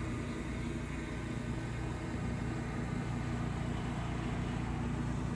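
Small DJI Mini 2 quadcopter drone hovering a few metres overhead: a steady propeller hum over a low outdoor rumble.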